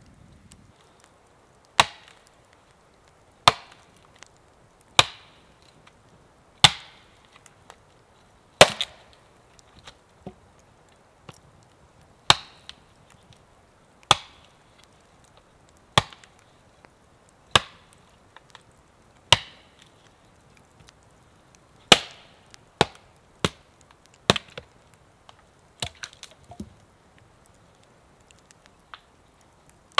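An axe chopping wood: single sharp chops repeated about every one and a half to two seconds, then a few quicker, lighter strikes near the end.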